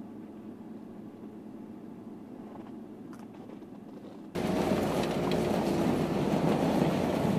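A low, steady rumble, then about four seconds in a sudden jump to the louder noise of a loaded pickup truck driving through snow, engine and tyres together.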